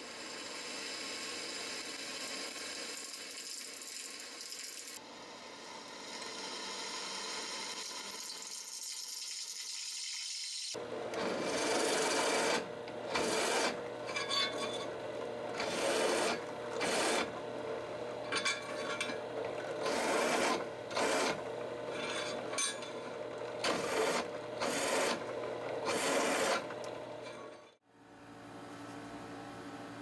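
Drill press running with a twist bit cutting into a steel knife tang, a steady grinding. After a cut about ten seconds in, a countersink bit is pressed into the holes again and again, giving a dozen or more short, louder grinding bursts.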